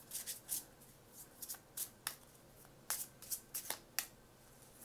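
Oracle card deck being shuffled by hand: a run of short, irregularly spaced card flicks and taps.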